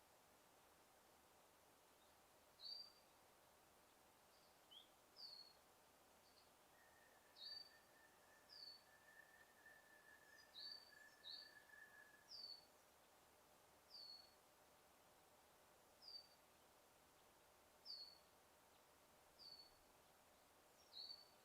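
A bird repeating one short, falling chirp about every one and a half to two seconds, quiet over a faint steady hiss of forest ambience. A thin held whistle sounds from about seven to twelve seconds in.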